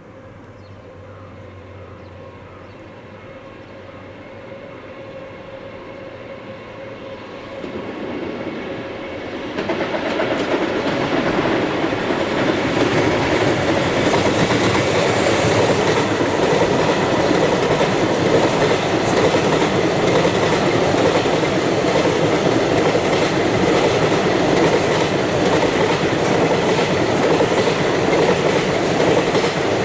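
JR Freight EF210 electric locomotive approaching with a long container freight train, growing louder over about ten seconds. The container wagons then roll past in a loud, steady rumble of wheels on rail.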